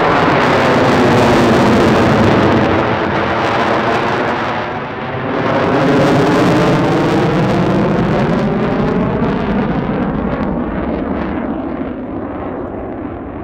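F-16 Fighting Falcon's single jet engine, loud as it flies overhead, its tone sweeping up and down as it passes. The noise dips briefly about five seconds in, then fades slowly as the jet moves away.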